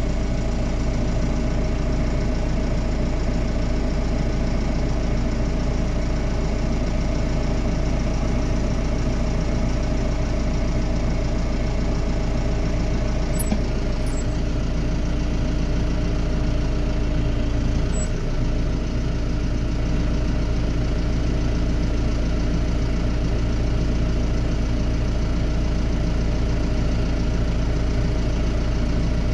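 Diesel engine of farm machinery idling steadily, an even low hum with no change in speed.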